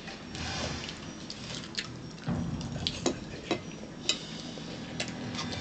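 Metal forks tapping and scraping on a plate and a bowl while eating, with a handful of separate sharp clinks.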